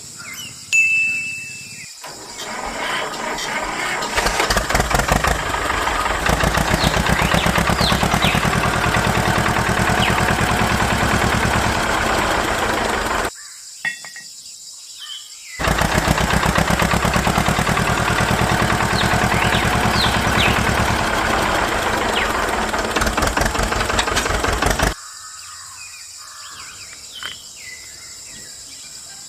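A small motor running in two stretches of about ten seconds each, with a short pause between; it stops abruptly each time.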